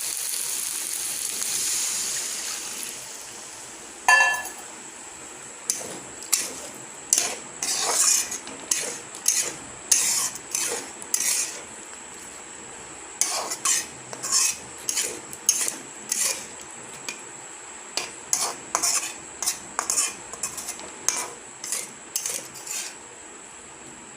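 Potato and cauliflower curry sizzling in a hot pan with water just added, the hiss fading over the first few seconds. A ringing metal clang comes about four seconds in, then a long run of short clinks and scrapes of a spoon stirring in the pan.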